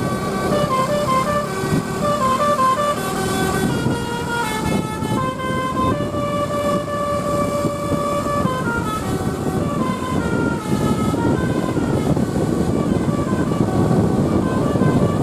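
Basuri-type telolet bus horn playing a melody in stepped notes, several short notes followed by one long held note partway through, then more short notes, over a steady low rumble.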